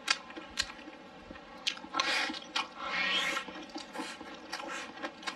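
Close-up eating sounds: a person chewing and smacking a mouthful of rice, with sharp clicks of wooden chopsticks against a ceramic bowl scattered through, and two longer wet smacking stretches about two and three seconds in.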